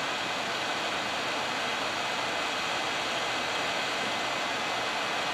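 858D hot air rework station blowing a steady, even hiss of hot air from its nozzle onto a surface-mount circuit board, reflowing solder paste under the chips.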